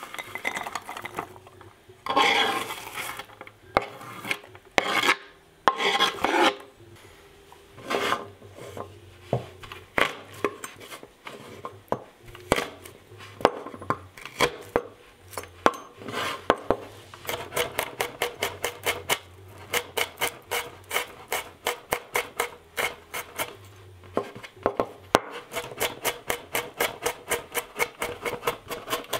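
Kitchen knife on a wooden cutting board: scraping and irregular knocks, then from about two thirds of the way in an even run of chops at about four a second.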